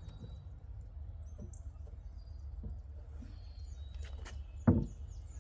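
Birds chirping with short, high, falling notes over a steady low rumble, and one loud thump a little before the end.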